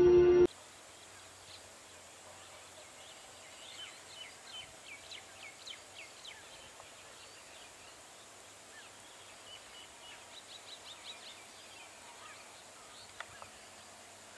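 Intro music cuts off half a second in, leaving quiet open-air ambience in which a bird chirps in quick runs of short high calls, once about four seconds in and again around ten seconds in, with a single sharp click near the end.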